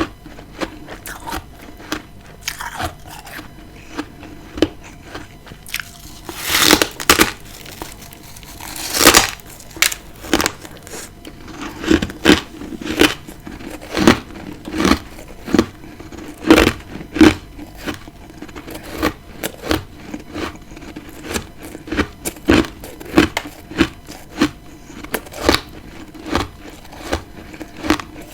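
Close-up crunching of freezer frost being bitten and chewed: two long, loud bites about seven and nine seconds in, then a steady run of crunching chews.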